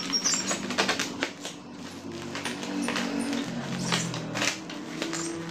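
A sealed shipping parcel being opened by hand: a rapid, irregular run of clicks and crackles from the plastic packaging and tape.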